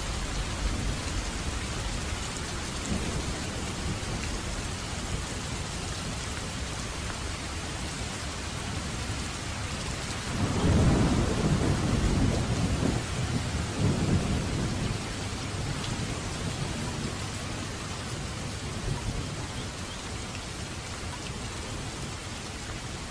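Steady rain, with a roll of thunder about ten seconds in that rumbles low for several seconds, swelling twice before fading back under the rain.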